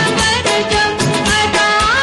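Background music with a beat, pitched instruments and a melodic line.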